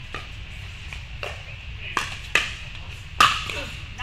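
A pickleball rally: sharp pops of paddles striking a plastic pickleball, about five hits spaced irregularly, the loudest near the end.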